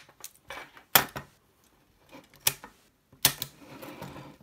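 Sharp clicks and knocks of a Commodore Datasette's plastic key block and metal tape-deck chassis being handled and fitted together. There are three loud clacks, about a second, two and a half seconds and just over three seconds in, with scraping handling noise near the end.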